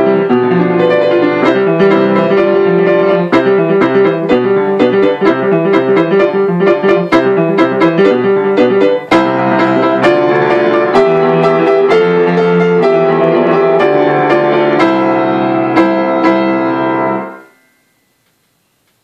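Grand piano played solo: a busy run of quick notes over held lower notes, which stops sharply about two seconds before the end.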